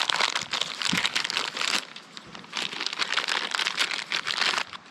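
Plastic packaging crinkling as it is handled and opened, in two long stretches with a short lull about two seconds in.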